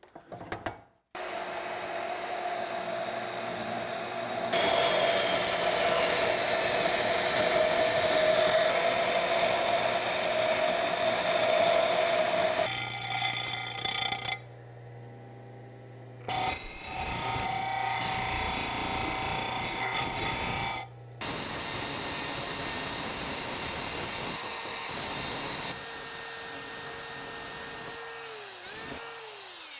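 Power tools cutting and grinding steel header flanges: a portable band saw cuts through the flange's short tube stubs, then the cut ends are sanded and ground in several short stretches. Near the end a tool's motor slows down, its pitch falling.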